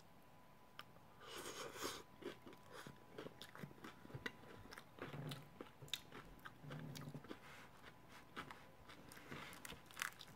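Mouth-close crunching and chewing of a bite of crisp fried-tortilla tostada: faint, irregular crunches and wet chewing clicks, with a louder crunch about a second or two in.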